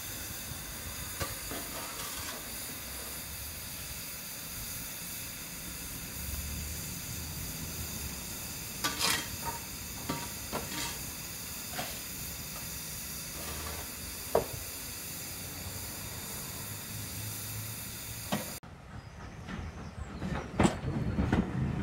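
Steam hissing steadily from the 1899 Taff Vale Railway O2 class tank locomotive No. 85, with a few sharp metallic clanks around the middle. Near the end the hiss gives way to a lower rumble with a few loud knocks from a passenger train at a platform.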